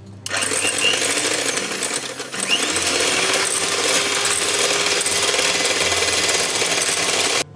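Electric hand mixer running, its two wire beaters whipping cream in a ceramic bowl with a steady whirr and rattle as the cream is beaten toward stiff peaks. The mixer starts about a quarter-second in, dips briefly after about two seconds, comes back louder, and cuts off suddenly near the end.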